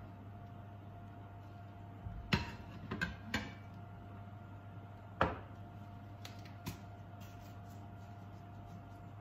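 Kitchen handling noises: a sharp knock about two seconds in, a short cluster of clicks a second later, another sharp knock past five seconds and a softer click near seven, as utensils and seasoning containers are set down and picked up on a countertop. A steady low hum runs underneath.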